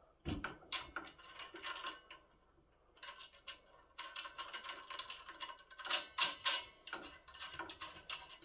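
Metal parts of a Birchwood Casey Pigeon Launch clay thrower clinking and rattling as they are fitted together by hand: irregular clicks and taps with a slight metallic ring, a short lull about two seconds in, then denser clicking through the second half.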